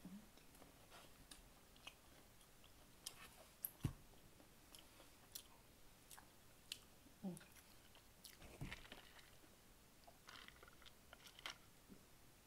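Quiet close-miked chewing with scattered wet mouth clicks and smacks, from eating a sauced buffalo chicken wing, with a dull thump about four seconds in and another near the end.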